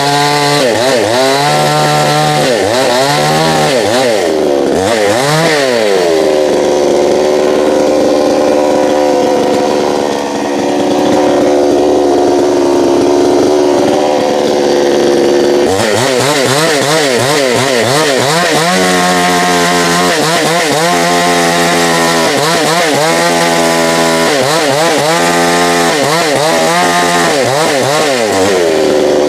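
Gas chainsaw engine revving up and down over and over, then held at high speed for about ten seconds in the middle before the revving in and out starts again, settling high near the end.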